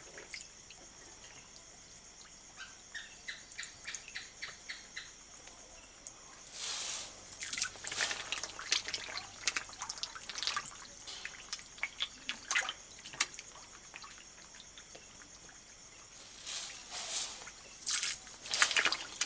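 Walking catfish feeding at the water's surface, with splashes, slurps and drips as they snatch food. The splashing comes in two spells of a few seconds each, over a steady high-pitched whine.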